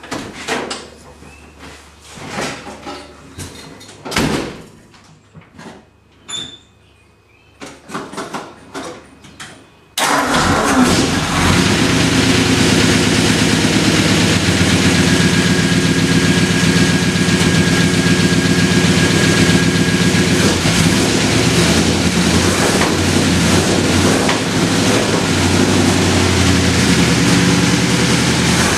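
A few clicks and knocks, then about ten seconds in a 1950 Ford's engine is suddenly running, loud and steady. This is a cold start after the car has sat for five days.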